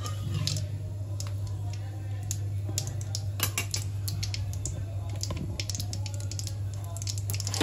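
Cumin seeds and bay leaves sizzling in hot oil in a kadai, with irregular sharp crackles and pops over a steady low hum.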